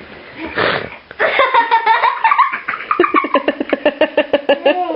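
A person laughing heartily: a drawn-out high-pitched voice beginning a little over a second in, breaking into a fast run of short laughs, about six a second, that lasts until the end.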